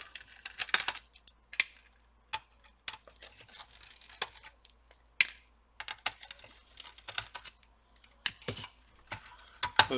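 Scattered, irregular small clicks and taps of a screwdriver and small screws as the four screws holding a laptop's 2.5-inch hard drive are taken out.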